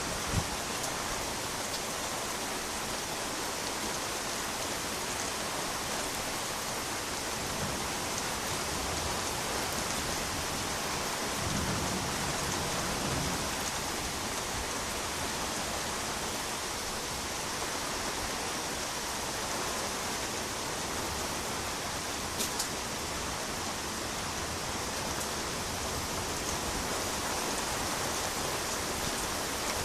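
Steady rain during a thunderstorm, an even hiss of rain falling on surfaces, with a faint low rumble about twelve seconds in and a few sharp drip-like taps.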